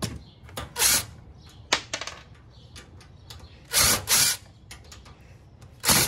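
Cordless drill-driver running in short bursts as it backs screws out of a tower server's metal case: a brief burst about a second in, two close together around four seconds in, and another at the end, with light clicks between.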